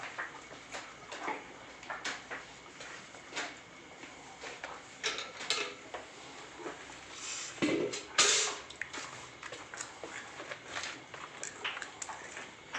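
Calf suckling at a desi cow's udder: irregular wet smacks and clicks, with a louder burst of noise about eight seconds in.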